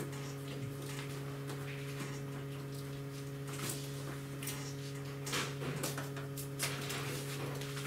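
Handling noise from a laptop box and its packaging being opened: scattered clicks, taps and rustles that come more often in the second half, over a steady low electrical hum.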